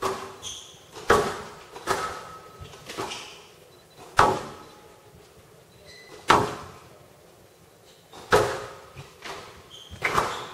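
Squash rally: the ball is struck by rackets and smacks off the walls of a glass court in sharp, echoing cracks about once a second at an uneven pace, with short shoe squeaks on the court floor between the shots.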